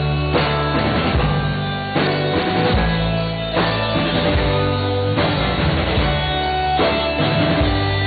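Live rock band playing an instrumental passage: strummed acoustic guitar and electric guitars over a drum kit, with chords changing in a steady rhythm.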